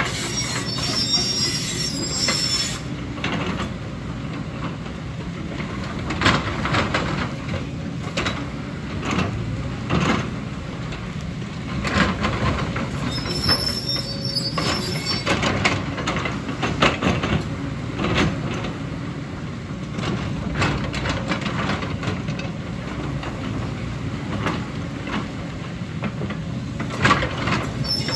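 JCB tracked excavator's diesel engine running steadily under load, with its steel bucket scraping and knocking against rock and rubble. Short high squeals come near the start, about halfway through and again at the end.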